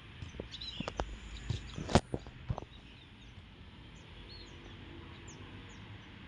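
Birds chirping over steady outdoor ambience, with a handful of sharp knocks in the first half, the loudest about two seconds in.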